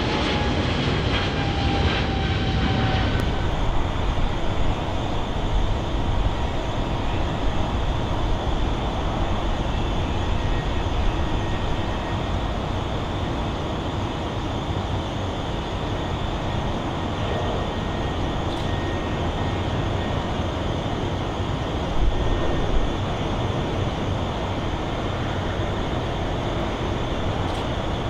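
For the first few seconds, a twin-engine Boeing 777 climbing out, its engine whine falling in pitch as it goes away. Then the steady noise of a Boeing 747 freighter's four jet engines at takeoff power during its takeoff roll.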